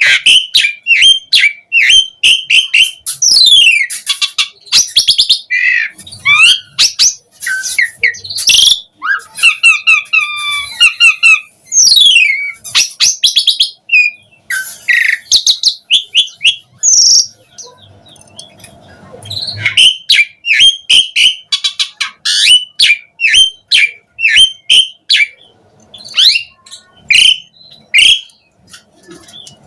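Pied starling (jalak suren) in full, fast song: a dense run of loud whistles, sharp chirps, rising and falling glides and rattling trills with only short pauses.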